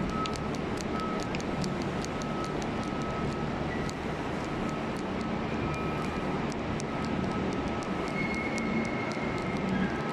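Steady rumbling hum of a large railway station hall, with many short, sharp clicks of footsteps on the hard tiled floor.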